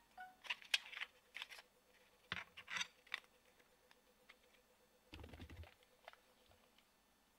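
Irregular light clicks, taps and scratchy scrapes of small hard objects being handled, with a short low rumble about five seconds in.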